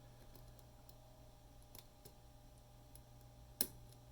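Faint, scattered clicks of a hook pick working the wafers of an Illinois Duo cabinet lock under a tension wrench, with one sharper click about three and a half seconds in.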